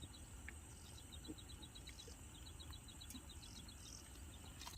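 Faint outdoor ambience: quick runs of short, high-pitched chirps from a small creature repeat every second or so over a low, steady rumble.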